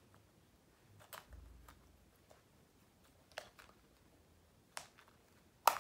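A few light, scattered clicks of a small plastic surprise-egg toy capsule being handled and prised open, with a sharper click near the end.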